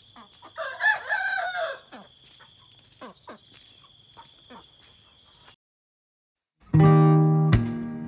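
Rooster crowing once about a second in, followed by a few short clucks or chirps, over a steady high insect drone. The sound cuts out at about five and a half seconds, and acoustic guitar music starts near the end.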